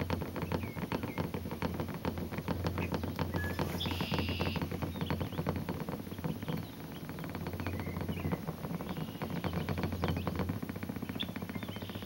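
Glass beer bottle chattering against a car's metal roof as it vibrates, a fast run of small clicks over a low steady hum. Birds chirp briefly about four seconds in.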